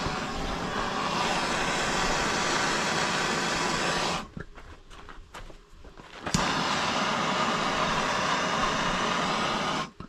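Hand-held gas torch burning with a steady roar as it heats a copper fitting for silver-soldering. About four seconds in the flame shuts off, a few small clicks follow, then a sharp click about six seconds in and the flame roars again until just before the end.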